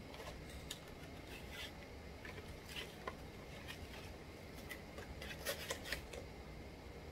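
Faint scattered clicks and rustles of packaging being handled and opened, a small cluster of sharper clicks near the end.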